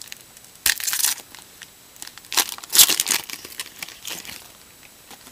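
Foil wrapper of a Topps jumbo baseball card pack crinkling as hands tear it open and pull the cards out. It comes in bursts: about a second in, again around two to three seconds in, and briefly near four seconds.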